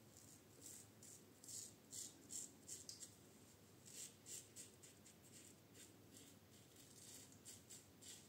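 Goodfellas Syntesi safety razor with a Kai blade scraping through a 20-day beard on the neck: a run of short, faint scratchy strokes, about two or three a second, with brief pauses between passes.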